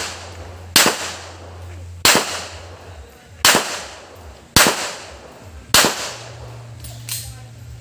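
Pistol shots fired one at a time at paper targets during a practical-shooting stage: five sharp cracks about once every 1.2 seconds, each with a short echo, then two much fainter pops near the end.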